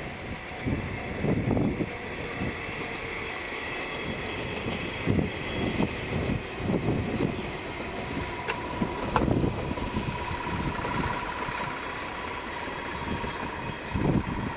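A JR 485 series electric train running past, with uneven low knocks from its wheels along the track. A steady high tone joins in about two-thirds of the way through.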